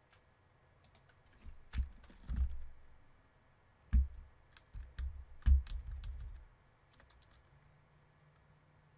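Computer keyboard being typed on in short irregular runs, some strokes landing with heavy thuds. A few light clicks follow near the end.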